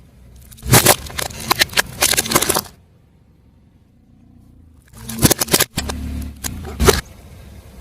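A car tyre rolling over and crushing brittle objects: two bursts of cracking and crunching, each about two seconds long, the first starting about a second in and the second about five seconds in. Each burst has a sharp loud crack, and a low rumble lies between them.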